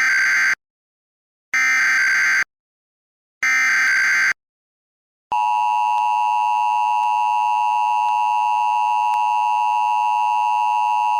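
Emergency Alert System test signal: three roughly one-second bursts of SAME digital header tones, separated by silent gaps, then the steady two-tone attention signal starting about five seconds in.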